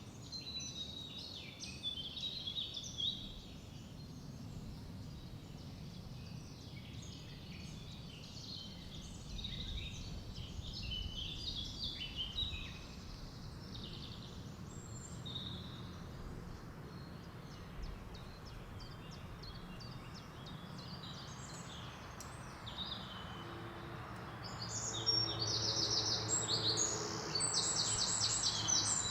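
Forest ambience: several birds chirping and calling over a steady low background rumble. A louder, fast trilling call of rapidly repeated notes comes in near the end.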